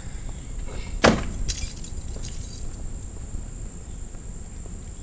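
A Jeep Cherokee's door slammed shut once about a second in, followed by a short metallic jingle.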